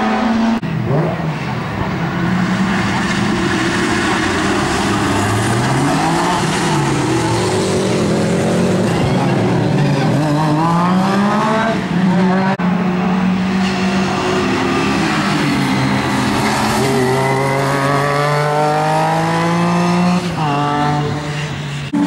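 Rally car engines running hard, their pitch climbing and dropping again and again as they accelerate and change gear. The sound breaks off abruptly about half a second in and again near the middle.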